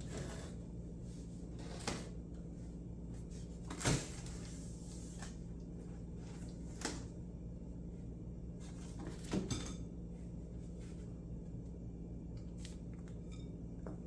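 Unboxing handling noises: scattered knocks and rustles as packaging and plane parts are moved and set down, four distinct knocks with the loudest about four seconds in, over a steady low hum.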